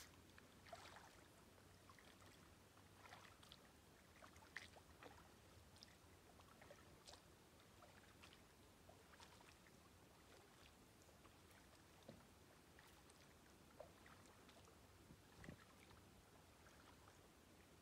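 Near silence with faint, scattered splashes and drips from a kayak paddle dipping into calm water, heard at a distance.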